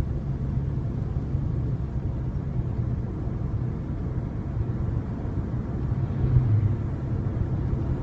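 Steady low rumble of a moving car heard from inside the cabin: engine and road noise, swelling briefly about six seconds in.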